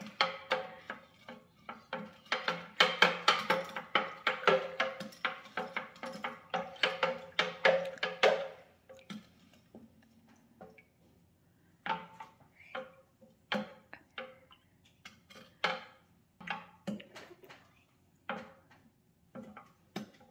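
Wooden spoon stirring lemonade in a plastic pitcher, knocking against its sides: a fast run of clacks for about eight seconds, a short pause, then single knocks roughly once a second.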